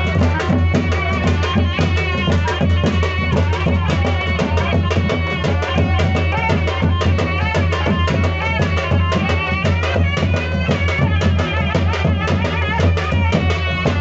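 Loud dance music with a fast, steady drum beat, heavy bass, and a wavering melody over it.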